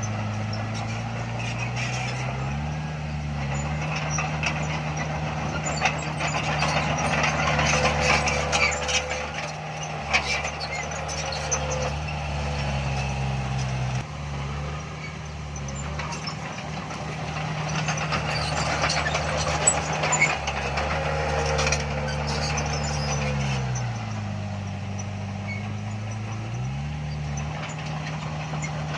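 Heavy diesel engine of an earthmoving machine running under load. It drops to a low idle and revs back up twice, with scattered metallic clanks and knocks.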